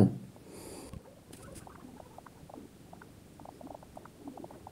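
Faint, irregular light clicks and taps, several a second, from text being entered on an on-screen keyboard.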